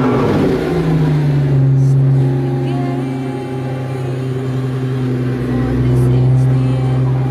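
Pagani Huayra's twin-turbo V12 just after start-up: the revs fall away in the first second or so, then it settles into a steady, even idle.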